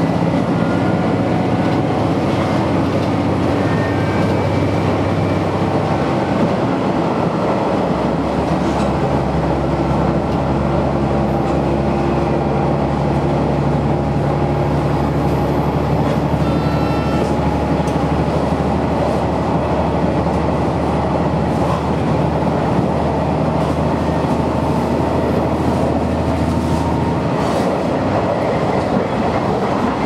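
Interior running noise of a KiHa 110 series diesel railcar at speed: the diesel engine's steady drone under the noise of the wheels on the rails. The engine note changes pitch about a quarter of the way in and again near the end.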